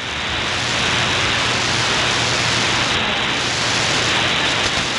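Steady shortwave radio static and hiss from a software-defined receiver tuned between stations on the 31-metre band, with no broadcast signal on the frequency.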